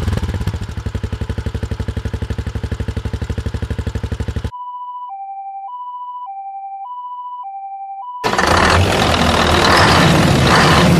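A small engine putters with a fast, even pulse. It cuts off at about four and a half seconds to an electronic level-crossing warning signal beeping in two alternating tones, high then low, for about four seconds. Near the end a louder, rough truck-engine rumble takes over.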